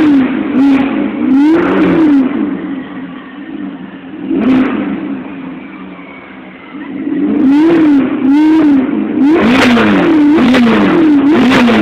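Ferrari California's V8 being revved loudly in repeated short blips, the pitch rising and falling with each one. A quieter stretch in the middle holds a single rev, then comes a quick run of revs near the end.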